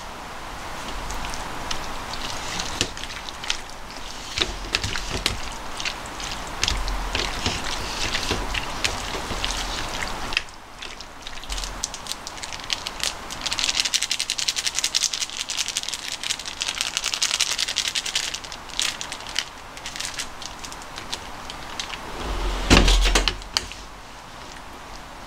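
Kitchen handling sounds of raw chicken pieces being worked in a tray with a metal spoon: scattered clicks and a crackly rustle, pausing briefly about ten seconds in. A louder knock comes a couple of seconds before the end, as potato starch is being mixed into the chicken.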